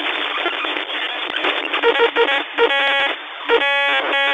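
Glitch-style sound effect for a logo reveal: a steady, narrow radio-static hiss, then from about two seconds in a run of harsh electronic buzzes and tones that cut in and out.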